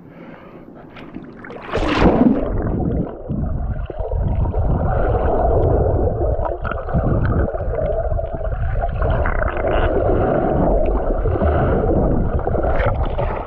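A splash about two seconds in as the camera plunges under the creek surface, then the muffled, steady underwater rumble and gurgle of the creek water, heard from below the surface.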